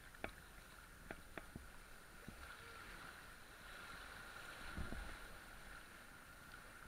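Faint splashing and swishing of choppy river water around inflatable kayaks being paddled, with a few sharp knocks early on from the paddles and a louder low splash about five seconds in.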